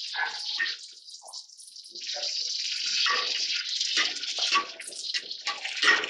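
Sliced tomatoes and onions sizzling in hot oil in a steel pot, with a metal ladle stirring and scraping against the pot. The sizzle eases for about a second early on, then picks up again, and a sharp clank comes near the end.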